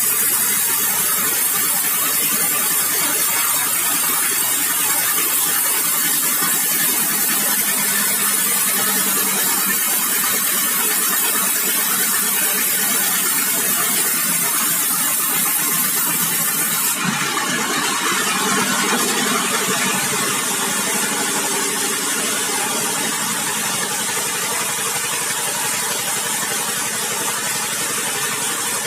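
Sawmill machinery running steadily and loudly. A strong high-pitched hiss rides over it for the first seventeen seconds or so, then cuts off suddenly while the machine keeps running.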